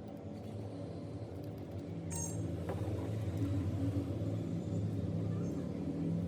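A short, light metallic clink with a bright ring about two seconds in, over a steady low hum.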